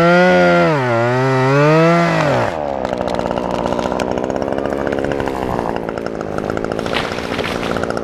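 Small two-stroke chainsaw revving up and down, then running rough and lower-pitched under load as it cuts through the trunk of a dead white fir, a bit much for the little saw.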